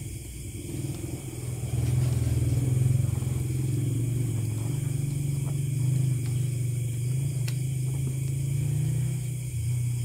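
A low engine rumble that grows louder over the first two seconds, then holds steady with its pitch wavering slightly.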